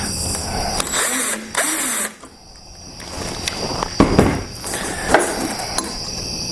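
Power drill running in two short bursts about a second in, then a pause and a few sharp knocks of tools and hardware being handled.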